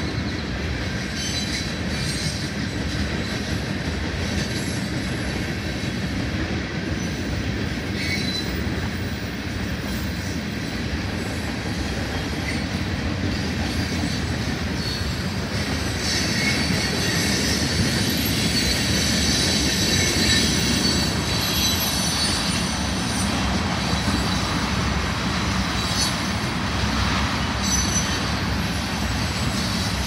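Freight cars of a Union Pacific manifest train rolling past: a steady rumble of wheels on rail with a thin, high wheel squeal, growing louder past the middle.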